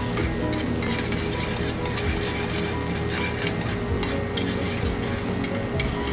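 Sliced small onions (shallots) sizzling in hot coconut oil in a heavy iron chatti, stirred with a metal spoon that scrapes and clinks against the pan now and then. Background music plays underneath.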